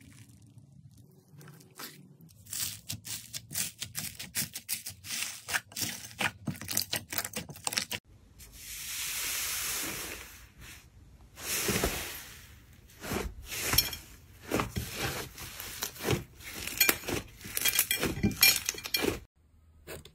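Hands squeezing slime. Foam-bead slime (floam) gives a dense run of small crackles. About eight seconds in, an air-filled slime dome is pressed down and air escapes with an even hiss lasting a few seconds, followed by bursts of sharp pops and crackles.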